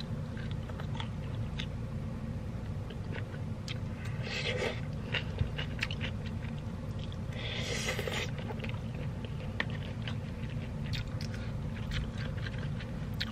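Close-up eating sounds: chewing chicken rice, with a plastic spork clicking and scraping against a takeaway food box, over a steady low hum. Two short hissing noises come about four and eight seconds in.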